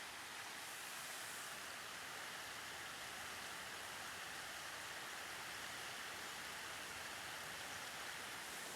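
Faint, steady rush of flowing water, an even hiss with no breaks.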